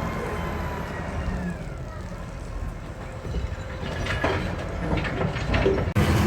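A motor running, its pitch dropping about a second in, followed by a cluster of knocks and crashes in the last couple of seconds, typical of machinery and debris in demolition work.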